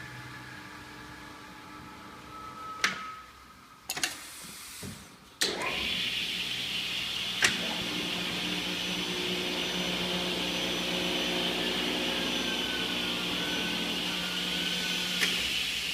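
Vertical panel saw: a hum stops about three seconds in, a few sharp clicks follow, then the saw's motor starts about five seconds in and runs steadily, with a hiss and a steady whine, and an occasional click.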